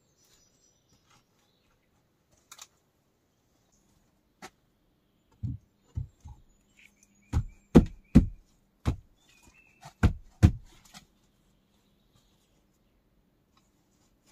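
About ten dull thuds at an uneven pace, a few scattered at first, then coming close together, with faint bird chirps.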